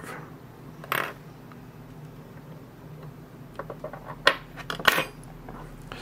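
Small metal lock pins from a Mul-T-Lock cylinder clicking and clinking as they are handled and dropped into a pin tray: one sharp click about a second in, then a cluster of light clinks near the end with two louder ones.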